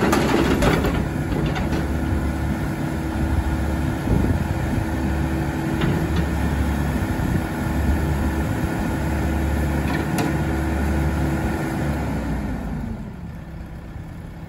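Volvo ECR88D compact excavator's diesel engine running steadily with a low hum while the machine moves, with a few knocks in the first second. The engine sound dies down over the last two seconds or so.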